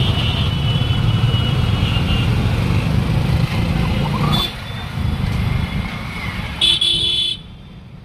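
Road traffic jam: vehicle engines rumbling steadily with car horns honking, one short horn blast near the end, after which the sound drops off sharply.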